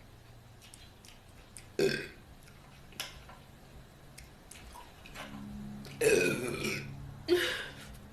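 A woman burping four times: a short burp about two seconds in, a weaker one a second later, then the longest and loudest burp around six seconds in, followed closely by another.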